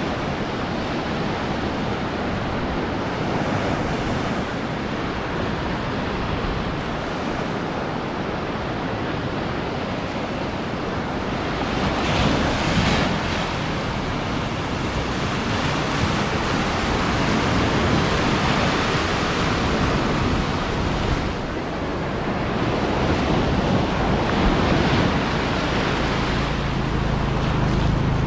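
Ocean surf breaking on a beach, swelling louder every few seconds as waves come in, with wind buffeting the microphone. A low steady hum joins near the end.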